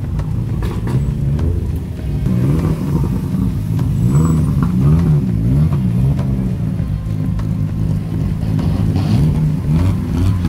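Off-road 4x4 vehicle engine revving, its pitch repeatedly rising and falling.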